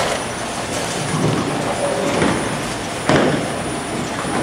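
Bowling alley din: bowling balls rolling down the lanes, with pins clattering and a sharp crash about three seconds in.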